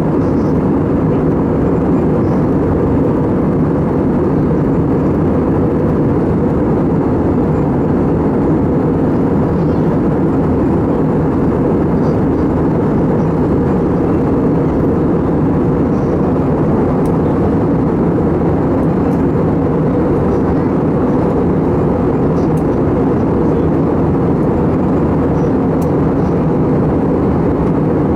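Steady roar of an Airbus A320's jet engines and airflow heard from inside the passenger cabin, deep and unchanging.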